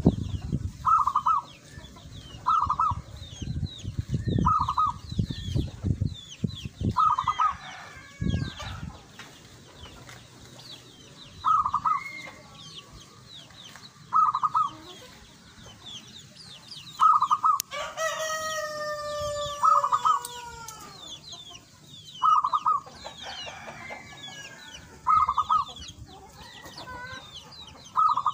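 Caged zebra dove (perkutut) singing: short trilled coos repeated every two to three seconds. A rooster crows once about two thirds of the way through, and small birds chirp faintly throughout.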